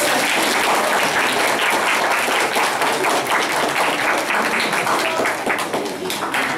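Audience applauding: many people clapping at once, steady and dense.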